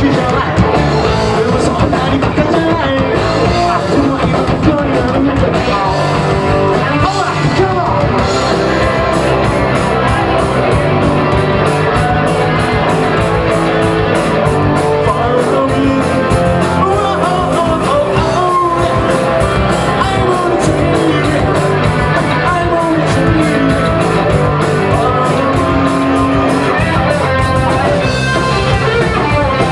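Rock band playing live: electric guitars, bass and drums with a singer.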